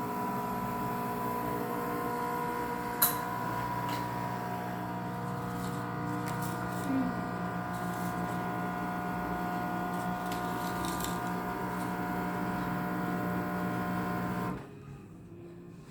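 Nescafé Dolce Gusto Genius Plus capsule coffee machine's pump buzzing steadily while it brews, with a click or two, then cutting off suddenly near the end.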